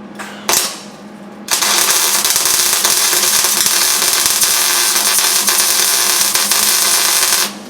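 Wire-feed MIG welder running a bead on thin sheet-steel floor patch, welding through a coat of rust treatment: a steady crackling buzz that starts about a second and a half in and cuts off just before the end, after a brief burst about half a second in.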